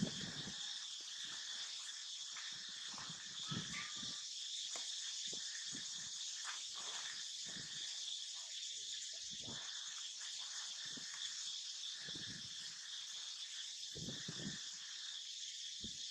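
Steady high buzzing of a forest insect chorus, with irregular low rustles and soft thuds coming and going over it.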